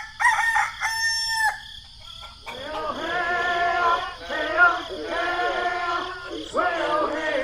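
A rooster crows once in the first second and a half. From about two and a half seconds in, a string of long, held, pitched calls follows.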